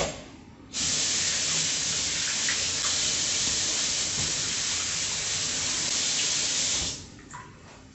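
Kitchen sink faucet running steadily as hands are rinsed under it. The water is turned on abruptly about a second in and shut off about a second before the end.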